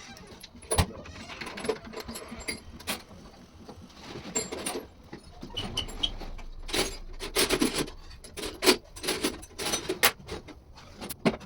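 Small metal parts and tools clinking and knocking against each other and the bench in an irregular string of taps, busier in the second half.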